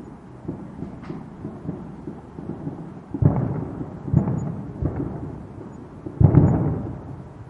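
Distant fireworks going off in a series of low, rumbling booms, the loudest about three and six seconds in.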